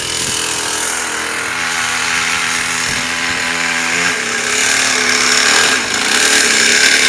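49cc two-stroke engine of a 2009 AMX ActiveMotoX mini motocross bike running, its note rising about four seconds in and growing louder as the bike approaches near the end.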